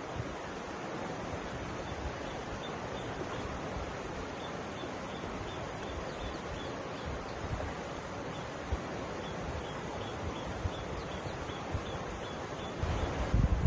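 Mountain river flowing: a steady rush of water. Two runs of faint, short high chirps, about four a second, sound over it, and a low gusty rumble rises near the end.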